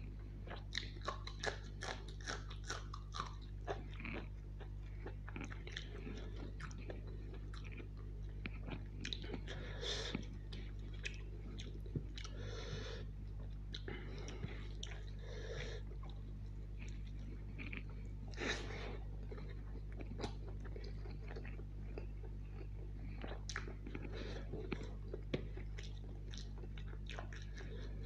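Close-miked mouth sounds of a man eating rice and chicken curry: chewing and biting with many short sharp clicks, densest in the first few seconds, over a steady low hum.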